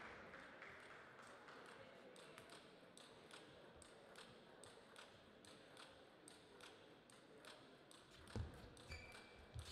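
Near silence in the playing hall, with faint light clicks. Near the end a heavy low thump, then short pitched pings of a table tennis ball as a serve is played.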